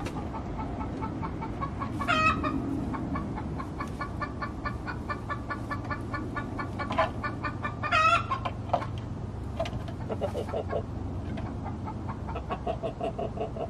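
Buff Orpington chickens clucking as they settle to roost: runs of short, rapid clucks, with a louder drawn-out call about two seconds in and another about eight seconds in.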